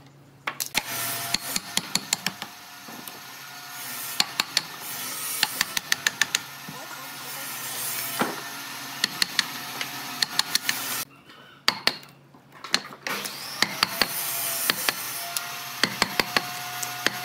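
A steel chisel being driven into and levering chunks off a thick block of wood, giving sharp knocks in quick clusters over a steady workshop background noise.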